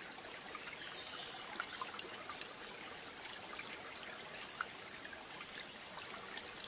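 Faint, steady trickling of running water, like a small stream, with a few soft ticks.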